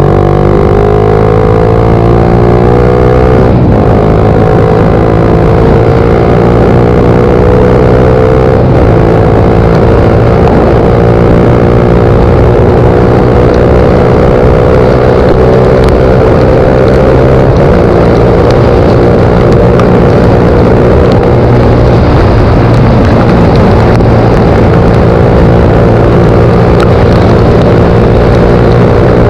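Suzuki GSX-R125's single-cylinder four-stroke engine accelerating through the gears, its pitch climbing with short breaks at upshifts about four and nine seconds in, then settling to a fairly steady cruise.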